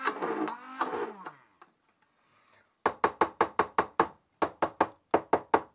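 Immersion blender motor running in beetroot purée, then switched off about a second in, its pitch falling as it spins down. Then two quick runs of about eight sharp knocks, the blender's shaft tapped against the rim of the pot to shake off the purée.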